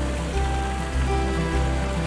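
Background acoustic music, with a bass note changing about twice a second.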